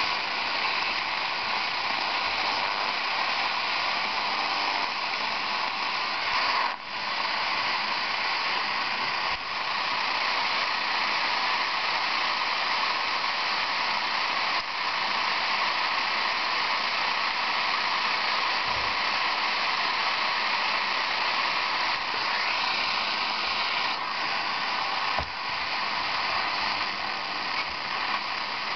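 Degen DE1103 receiver tuned across the longwave AM band on its internal ferrite antenna, its speaker giving a steady rush of static broken by four sharp clicks: static pulses from lightning.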